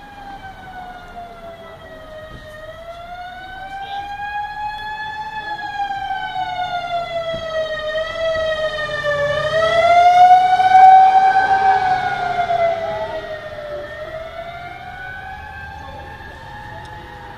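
A fire department emergency vehicle's siren wailing in a slow rise and fall of pitch. It grows louder to a peak about ten to eleven seconds in, then fades as the vehicle moves away.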